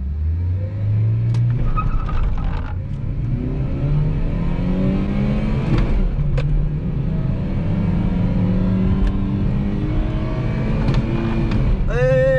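Ford Fiesta's 1.0 Zetec Rocam eight-valve four-cylinder engine heard from inside the cabin, pulling hard under acceleration in a manual car. Its pitch climbs, falls back about two seconds in and again around six seconds in as the gears change, then holds steadier as speed builds.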